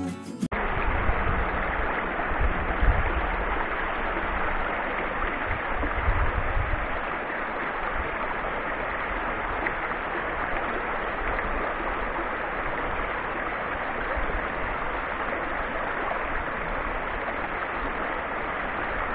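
A mountain creek rushing steadily over rocks. Irregular low rumbles come through during the first several seconds.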